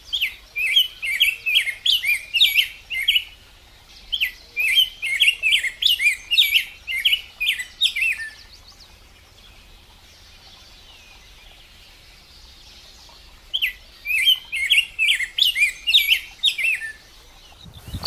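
Male rose-breasted grosbeak singing rapid, warbled phrases. A long phrase runs for the first eight seconds with a brief break about three seconds in. After a pause of about five seconds a last phrase follows.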